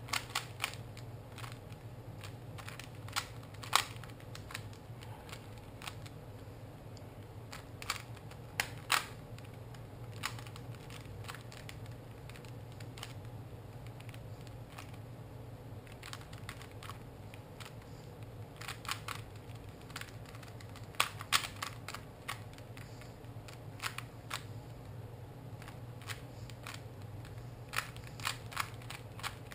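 3x3x3 Rubik's cube being turned by hand during a speed solve: irregular plastic clicks and clacks as the layers turn, some in quick clusters, over a steady low hum.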